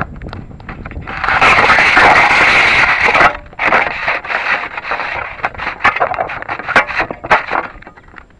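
Handling noise right at an onboard camera on a model rocket as it is held and set onto its launch pad. A loud, continuous scraping rub runs from about one to three seconds in, then a string of sharp clicks and knocks from fingers on the rocket body.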